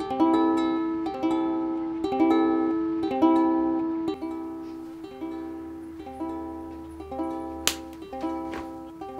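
Background music: a gentle plucked-string tune, notes struck about once a second and left to ring out. A sharp click cuts in near the end.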